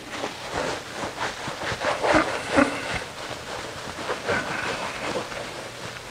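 Felt eraser wiping a whiteboard clean in quick, uneven back-and-forth strokes, with a brief squeak or two.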